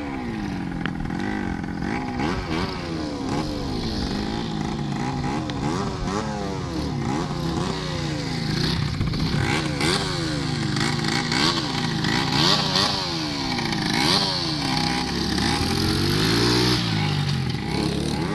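Small mini dirt bike engine revving up and down over and over, its pitch rising and falling about once a second as it is ridden across rough grass.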